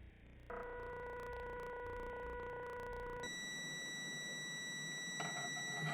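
Multimeter continuity beeper sounding a steady electronic beep, which jumps to a higher pitch about three seconds in, with light clicks near the end. The beep signals continuity: the water heater thermostat's contacts have closed again as its copper tab cools.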